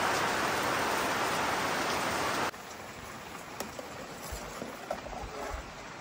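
Steady rain falling, a loud even hiss, which cuts off abruptly about two and a half seconds in, leaving a quieter hiss with a few light clicks of a metal ladle in a pot of boiling water.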